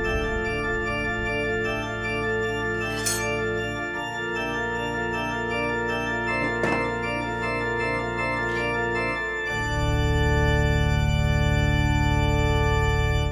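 Organ music: slow, sustained chords that shift about four seconds in, then swell louder with a deep held bass note from about nine and a half seconds.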